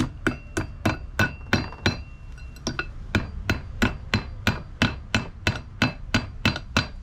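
Claw hammer tapping a cotter pin into the hole in a Suzuki 2.5 HP outboard's propeller shaft: a steady run of light metal-on-metal taps, about three a second. Many of the strikes, mostly in the first few seconds, leave a brief high ring.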